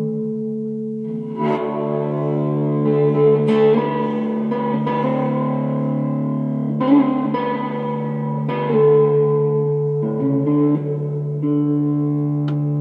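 Hollow-body electric guitar played with a bow: long sustained notes that swell and overlap, changing pitch every second or two over a low note held underneath.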